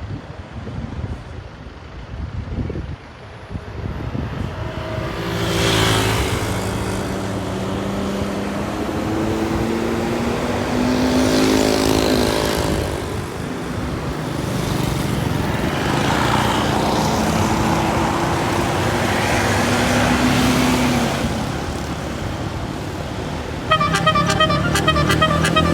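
Indonesian bus 'telolet basuri' musical air horns sounding over bus engine and traffic noise, with wavering horn tones. Near the end a multi-note horn tune starts, pulsing several times a second.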